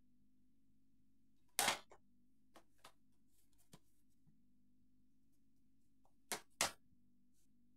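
Plastic HD DVD cases being handled and swapped in the hand: a loud clack about a second and a half in, a few light clicks after it, and two knocks in quick succession near the end, over a low steady hum.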